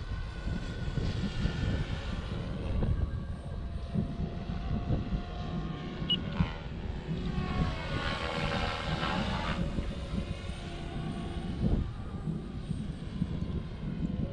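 OMPHOBBY M4 Max electric RC helicopter in flight, its rotor and motor whine gliding up and down in pitch as it moves about, loudest about seven to nine seconds in, over a low rumble.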